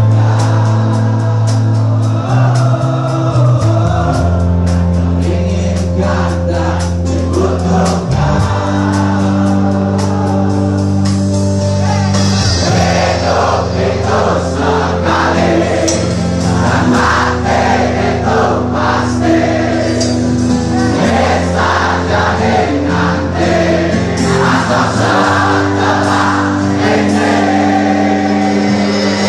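Indie rock band playing live: electric guitars, bass and drums under a sung vocal line, with the crowd singing along.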